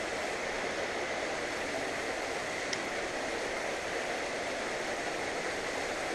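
Steady, even rush of flowing water at a creek spillway.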